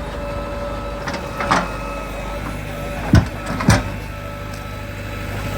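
JCB 3DX backhoe loader's diesel engine running steadily, with three short knocks about one and a half, three and three and a half seconds in.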